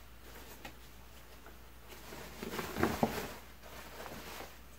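Fabric scissors snipping through a white cotton poplin dress shirt beside a felled seam, with the cloth rustling as it is handled. A louder flurry of snips and rustles comes about two and a half to three seconds in.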